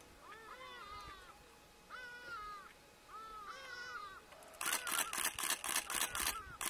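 A young lion gives a string of high, arching mewing calls, about one a second. About four and a half seconds in, a still camera's shutter fires in a rapid burst of clicks, about four a second and louder than the calls, which carry on beneath it.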